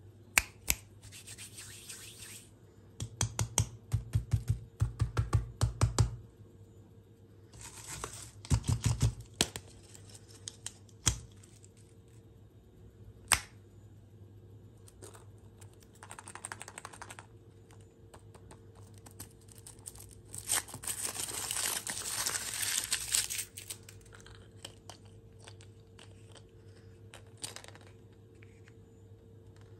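Hands handling wrapped candy: a run of quick taps on the lollipop and egg cases, scattered clicks, and short bursts of wrapper crinkling. About two-thirds of the way through, a longer, louder stretch of wrapper tearing and crinkling as a chocolate surprise egg is unwrapped.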